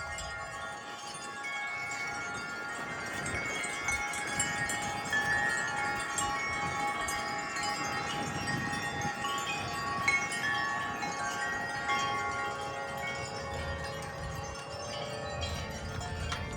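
Several wind chimes ringing, struck over and over by the wind, their many tones overlapping and sustained.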